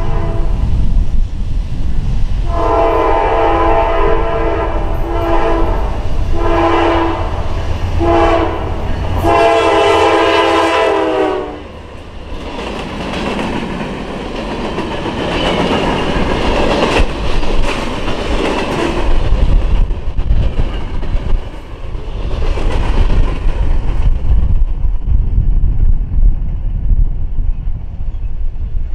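Norfolk Southern diesel freight locomotive's multi-chime horn blowing the grade-crossing signal of two long blasts, a short one and a long one, over the low rumble of the engines. The train then passes close by with steel wheels clattering over the rail joints and crossing; the noise thins after about 24 seconds as the last cars roll away.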